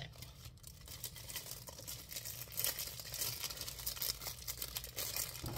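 Clear plastic packaging crinkling as it is handled and pulled off by hand, in irregular crackles.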